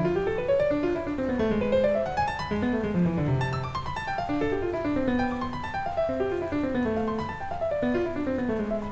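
Solo piano playing classical music, a steady stream of notes in runs that climb and fall.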